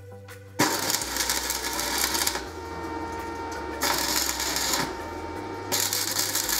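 Background music cuts off about half a second in. Then electric arc welding on steel takes over: a loud, continuous crackling and sizzling that swells in three spells of one to two seconds, with a quieter crackle in between.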